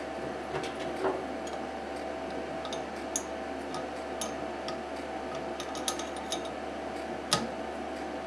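Scattered small metal clicks and clinks of a CNC router bit change, with wrenches working the collet nut to swap a V-bit for a 1/8-inch two-flute bit. The sharpest clink comes about seven seconds in, over a steady background hum.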